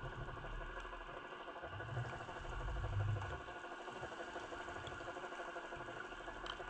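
A motor's steady hum with a rapid even pulsing, heard underwater through the camera housing. Low swells of rushing water noise rise and fall as the jig is worked, the strongest about two to three seconds in. A faint click comes near the end.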